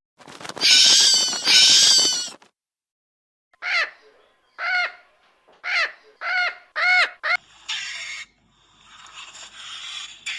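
Animal calls, most likely birds: two loud harsh calls in the first two seconds, then six short arching calls in quick succession, then a stretch of hissing noise.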